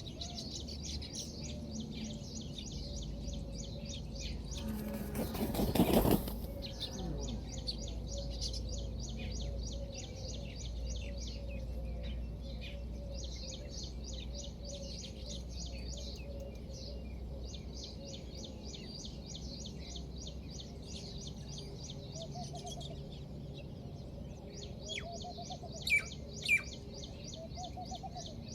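Outdoor bird chorus: steady, rapid high-pitched chirping, about five chirps a second, with a loud rustling burst about six seconds in and two short sharp calls near the end.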